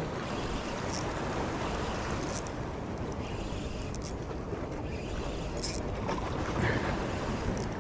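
Sea swell washing against shore rocks with wind on the microphone, a steady rushing noise. Brief high hisses rise out of it about every second and a half.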